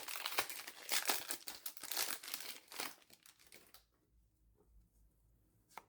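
Crinkling and rustling of a trading-card pack's wrapper and cards being handled for about three seconds, then quiet apart from a single click near the end.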